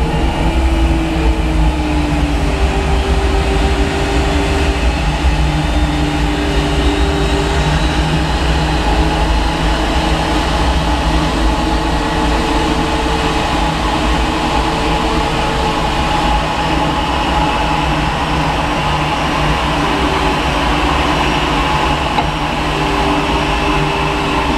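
Boeing 737 and its pushback tug running during a pushback: a loud, steady deep rumble with humming tones that break off and shift pitch every few seconds.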